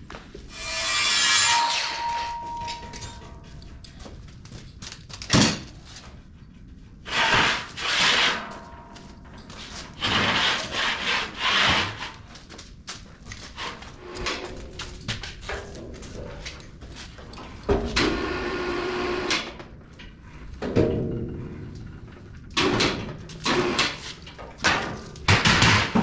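Repeated rasping, scraping strokes on steel, each a second or two long and irregularly spaced, with short sharp knocks between them, as the freshly trimmed steel bottom plate is cleaned up.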